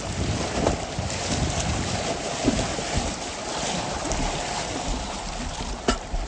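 River water rushing and splashing around a packraft on a swollen river, with wind buffeting the microphone and a few brief knocks.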